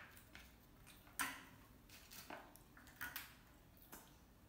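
A handful of light, sharp clicks and taps of small hard objects on a hard surface, about five in all, the loudest a little over a second in.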